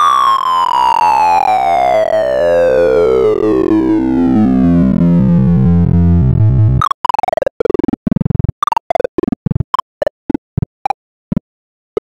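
Sound of Sorting's synthesized access tones during a Block Merge Sort (WikiSort) on a descending array, the pitch following the values of the bars being touched. One long tone glides steadily down in pitch for about seven seconds, then about fifteen short falling sweeps follow with gaps between them, each briefer and closer together, stopping shortly before the end.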